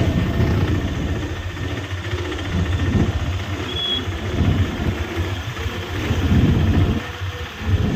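Engine of a tempo (three-wheeler auto-rickshaw), heard from on board while riding: a loud, steady low rumble that falls away at the very end.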